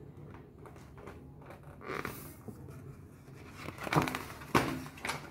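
A picture book's paper pages being handled and moved, giving a few soft rustles and short taps in a quiet small room. The two loudest come near the end.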